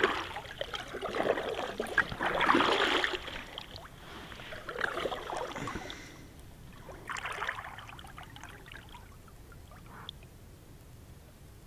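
Kayak paddle strokes in calm water, four splashing dips with water running off the blade, about every two seconds; they fade out after about eight seconds.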